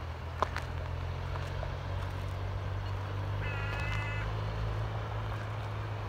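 Outdoor ambience: a steady low hum throughout, and a single short animal call about halfway through.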